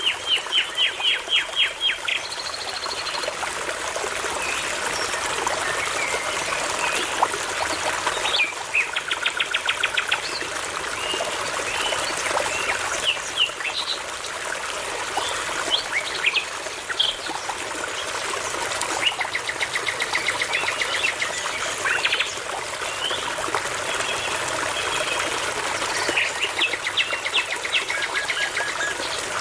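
Songbirds singing over a babbling brook: several bursts of rapidly repeated high notes and scattered single chirps, against the steady rush of running water.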